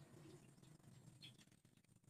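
Near silence: faint room tone with a few light ticks of handling small wooden parts.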